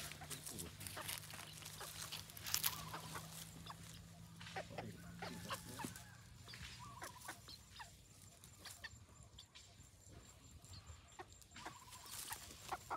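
Chickens clucking softly now and then, over frequent scratching and rustling in dry leaves and dirt as a hen forages and dust-bathes.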